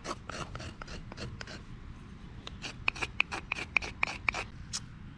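A knife blade shaving curls of tinder off a block of dry wood: a run of short, sharp scraping strokes, two or three a second, with a brief pause about two seconds in.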